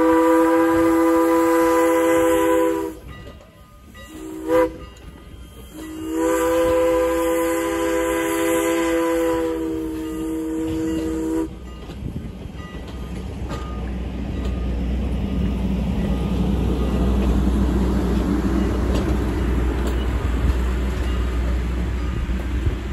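Steam locomotive whistle sounding several notes at once. It blows a long blast, a brief toot, then a longer blast that cuts off sharply about eleven seconds in. After that the train rumbles past, swelling and then easing.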